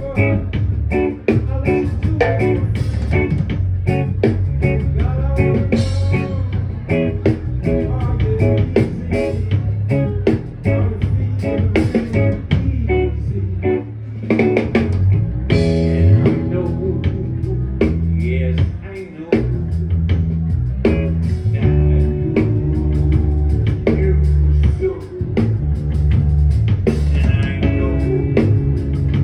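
Live rock band playing: electric guitar and bass over a drum kit.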